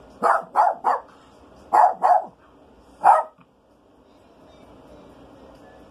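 Small Maltese dog barking in sharp bursts: three quick barks, then two, then a single bark about three seconds in.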